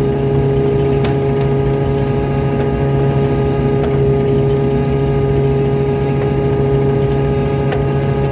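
Fishing boat's engine running at a steady pace, a constant low drone with a few faint knocks.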